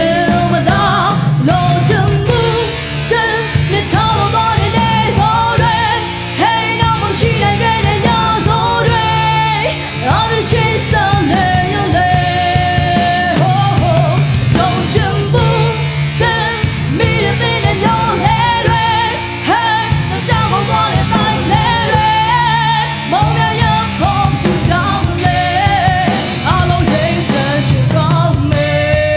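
A woman singing into a handheld microphone, backed by a live band with drums.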